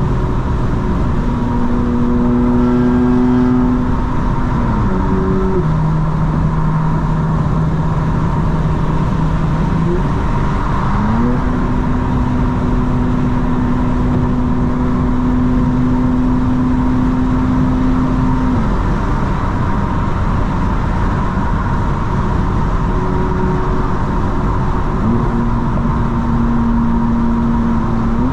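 BMW M4 Competition's twin-turbo inline-six running steadily at cruise, over continuous tyre and road noise. The engine note drops in pitch about five seconds in, climbs back after about eleven seconds, fades out for several seconds and returns near the end.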